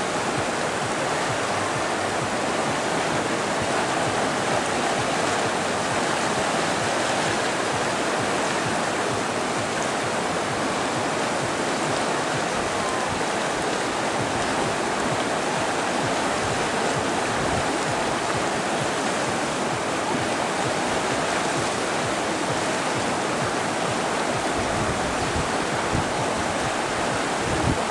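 River whitewater rapids rushing steadily, a constant even roar of churning water.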